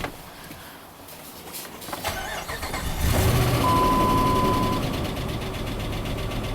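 A 2005 Dodge Ram 2500's 5.7 Hemi V8 being started: the starter cranks about two seconds in, and the engine catches a second later and settles into a steady idle. A steady beep lasts about a second just after it catches. The idle carries what the owner takes for a single-cylinder misfire.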